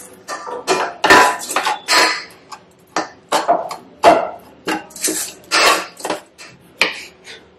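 Wooden spatula stirring and tossing poha in a stainless steel pot, scraping and knocking against the pot about twice a second.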